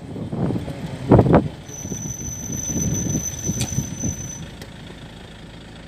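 Road and wind noise of a moving vehicle, with strong gusts on the microphone about a second in. A thin high whine runs through the middle and stops, leaving a steady low rumble.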